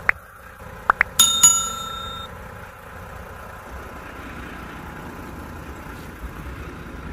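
Subscribe-button overlay sound effects: a few short clicks, then a bright notification-bell ding struck twice that rings for about a second. After that only faint, steady background noise remains.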